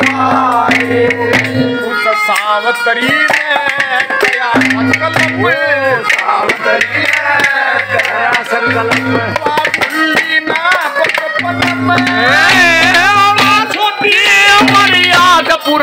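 Live Haryanvi ragni folk music played loud through a PA loudspeaker: a hand drum beating a fast rhythm under a wavering, heavily ornamented melody, with a low note pulsing on and off.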